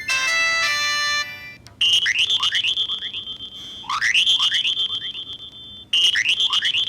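Samsung SCH-a815 mobile phone ringtones: a held electronic chord ends about a second in, and after a short gap a new synthesized ringtone starts, a quick rising run of chirps followed by a steady high tone, repeating about every two seconds.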